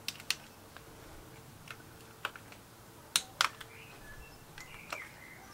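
Small socket ratchet working on the clutch-cover bolts of a motorcycle engine: a handful of light, irregularly spaced clicks as the already-loosened bolts are turned out.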